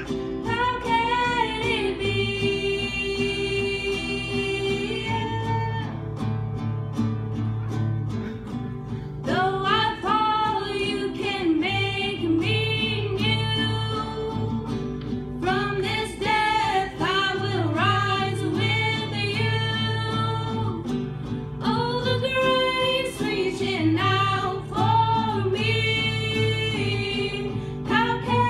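Two girls singing a song together, accompanied by a strummed acoustic guitar, in phrases with short breaks between them.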